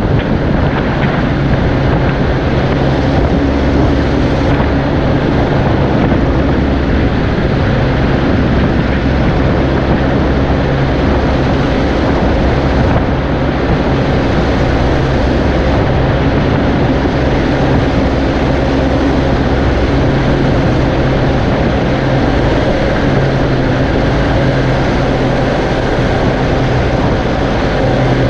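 Farm tractor's diesel engine running steadily at constant revs, with a low hum and a dense mechanical noise over it.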